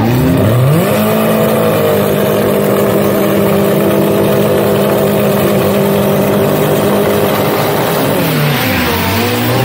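A drag car's engine revs up, holds steady at high revs for several seconds, then drops back and revs again near the end.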